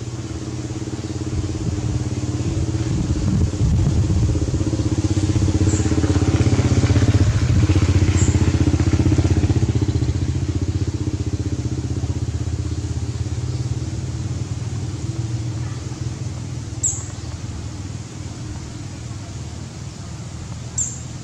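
An engine running, getting louder over several seconds and then slowly fading, as a passing vehicle does. A few short high ticks sound over it.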